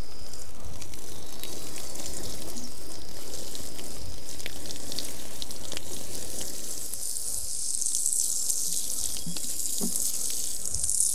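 Water running steadily from a watering can onto freshly planted grass and soil, a continuous splashing hiss that turns brighter and thinner about seven seconds in.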